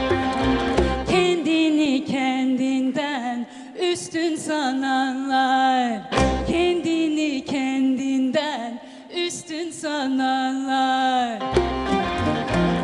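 A female singer performs a Turkish song with ornamented lines that slide between notes, accompanied by bowed and plucked strings. The low accompaniment drops away under the voice for long stretches and comes back in briefly around six seconds in and again near the end.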